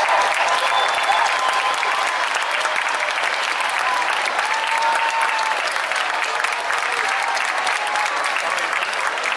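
Large crowd applauding steadily, with a few voices calling out cheers over the clapping.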